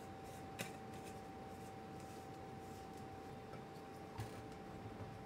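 Plastic personal-blender cup being screwed onto its blade lid and set upside down onto the motor base: a sharp click about half a second in and a soft knock about four seconds in, with a steady faint hum underneath. The motor is not running.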